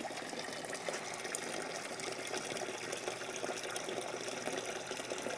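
Steady stream of water falling from a hole in a one-gallon jug into a bucket, splashing and trickling without a break.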